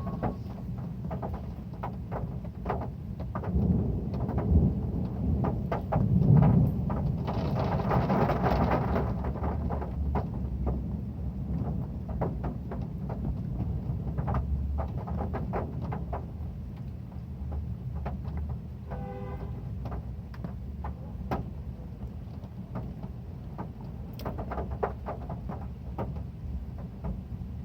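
Heavy rain on a metal roof, a steady rumbling wash with sharp drop ticks on the metal. A louder roll of thunder swells about four seconds in and fades out over the next several seconds.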